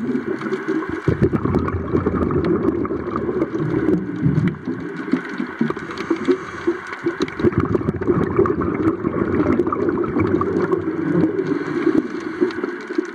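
Water noise recorded underwater: a steady, muffled rushing and gurgling with many small clicks scattered through it.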